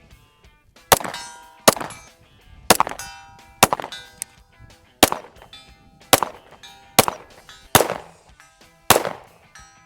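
Nine pistol shots from a Springfield Echelon fired at a steady pace of about one a second, each followed by a metallic ringing.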